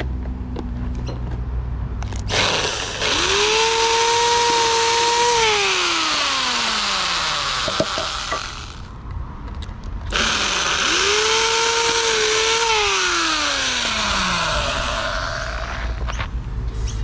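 Corded electric drill boring into a wooden slat in two runs of about six seconds each, with a short pause between them. In each run the motor whine rises as it speeds up, holds, then slides down in pitch before it stops.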